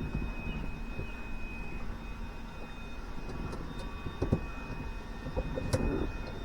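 Faint clicks and light knocks from hand work on a floor shifter and its cable, over a low steady background, with the clearest knocks about four seconds in and again near six seconds.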